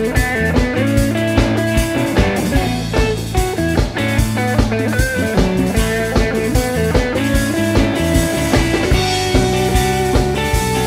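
A rock song with strummed guitars over a steady drum beat.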